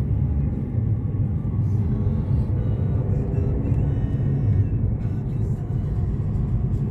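A car driving along a town road, heard from inside the cabin: a steady low rumble of tyres and engine.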